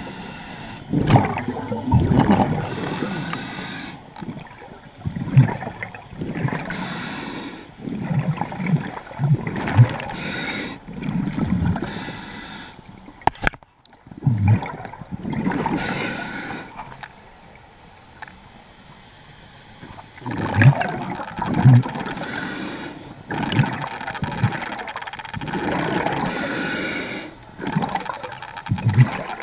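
A diver breathing underwater through a scuba regulator: a hiss with each inhale and a bubbling gurgle with each exhale, repeating every few seconds, with a quieter pause of a few seconds past the middle.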